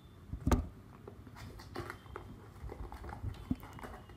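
Small cardboard box being opened by hand: a sharp knock about half a second in, then light scraping and rustling of cardboard as the end flap is pulled open and the contents slid out.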